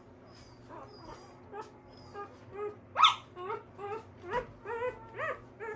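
A one-week-old pointer puppy squealing and whimpering as it is handled for weighing: a quick run of short, high cries, several a second, with one louder rising squeal about three seconds in.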